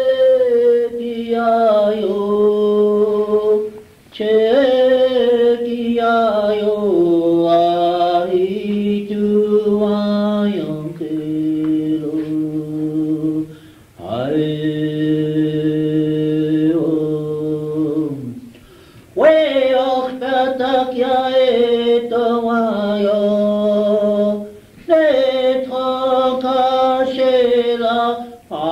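Unaccompanied chanted singing from an old consumer cassette recording: a voice holds long notes in about six phrases, each stepping down in pitch, with short breath pauses between them.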